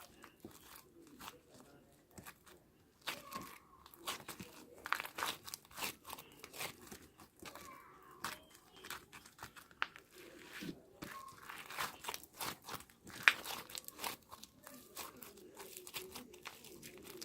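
Slime being squeezed and poked by hand: irregular crackly, crunchy clicks and pops with crinkling, one sharper pop about thirteen seconds in.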